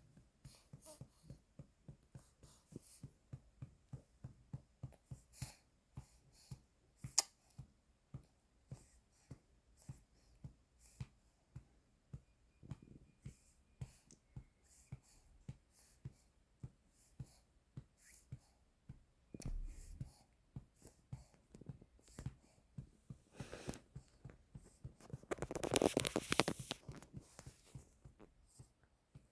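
Soft rhythmic pats, about two a second, of a hand patting a six-month-old baby's back to bring up a burp after feeding. A louder rasping noise lasting about a second and a half comes near the end.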